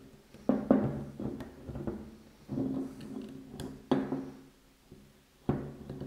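Spray-gun parts knocking and clicking as a part is levered out of the gun body, a series of sharp knocks spread unevenly over several seconds.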